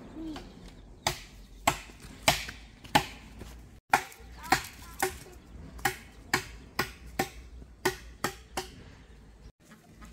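Repeated chopping with a blade, sharp strokes at about two a second, some of them ringing briefly.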